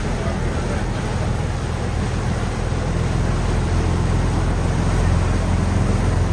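River ferry running underway: a steady low engine hum under an even rushing noise.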